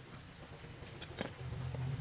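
Faint metal-on-metal clicks of a T-handle socket wrench loosening a bolt on a Honda Cub's engine cover, with one sharp click about a second in. A steady low hum starts just after it and grows louder.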